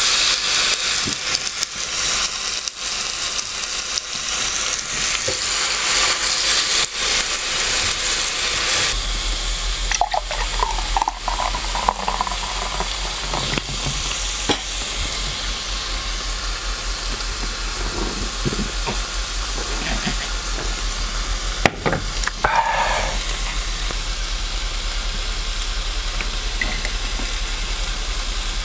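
Sliced pork sizzling on a round Korean BBQ grill plate over a portable gas stove. The sizzle is loudest in the first several seconds after the raw meat goes on, with a few clicks and knocks later and a steady low hum from about a third of the way in.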